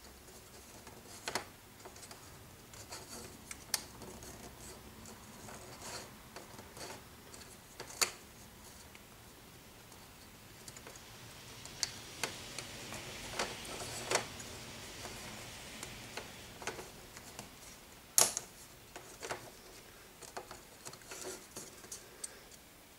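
Scattered light clicks, taps and rubbing of thin styrene plastic kit parts being handled and pressed together, the sharpest clicks about eight and eighteen seconds in.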